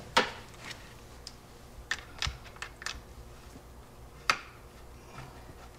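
Screwdriver turning and seating the screws that fix a plastic front wheel guard to an electric scooter's front fork: a scatter of small clicks and ticks, with sharper clicks right at the start and a little after four seconds in.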